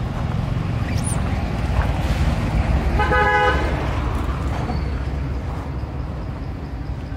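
A vehicle horn gives one short toot about three seconds in, over a steady low rumble.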